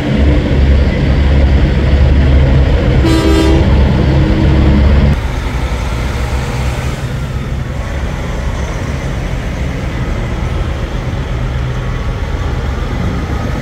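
Semi-truck diesel engines running as the rigs drive slowly past, with one short horn blast about three seconds in. The sound drops abruptly about five seconds in, and a quieter steady engine sound carries on.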